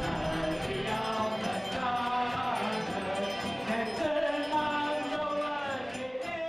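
Background music with a choir singing.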